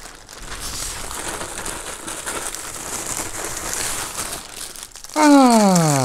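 Plastic mailer bag crinkling and rustling as hands rummage inside it and pull out a small packaged toy. About five seconds in, a loud voice-like tone slides steadily down in pitch.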